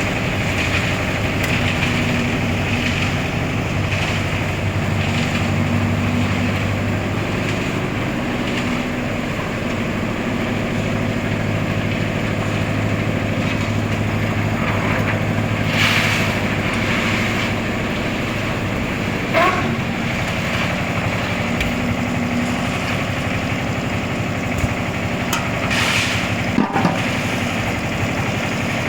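An engine running steadily at an even speed, with a few sharp knocks or clanks now and then.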